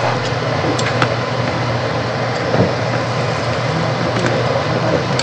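Steady hum and hiss of a working kitchen, with a few light clicks of a fork against a frying pan as tortillas are turned.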